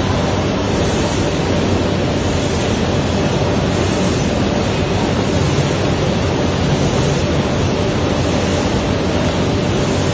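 Snack production line running: a steady, loud machinery noise with a low hum, as puffed snack balls are carried off a mesh conveyor onto a steel chute.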